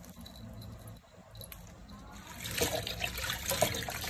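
Hands sloshing and splashing leafy greens in a stainless steel bowl of water to wash them, starting about halfway in after a quiet stretch.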